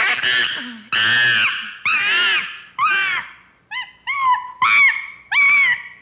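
Chimpanzee screaming, a run of loud, high, rising-and-falling calls. The first few are long and harsh, and from about halfway in they turn into shorter calls about two a second.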